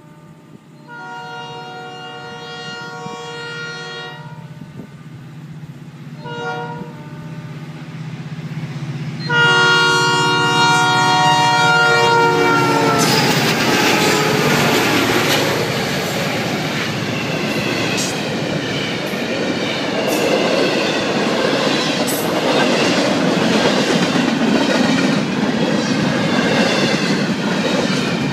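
Diesel freight locomotive horn sounding the grade-crossing signal: a long blast, a short one, then a long, loud one whose pitch drops as the locomotives pass. The locomotives' engines and then the steady clatter of the freight cars rolling over the rails follow, with occasional clanks.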